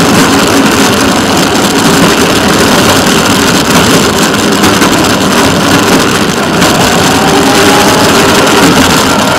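Small rail motorcar (track speeder) engine running loud and steady as the car travels along the track.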